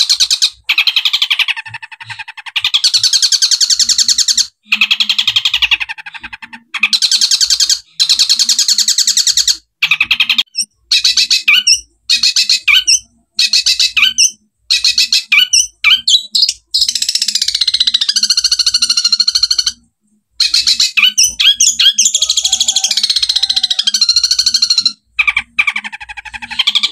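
Long-tailed shrike (cendet) singing loudly: dense runs of rapid-fire chattering notes and trills, with a few short breaks and some gliding notes about midway.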